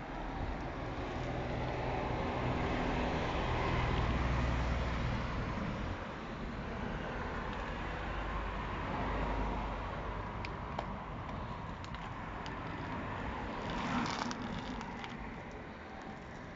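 A motor vehicle's engine running, swelling over the first few seconds and easing off, with a few light clicks and one sharp bump about 14 seconds in.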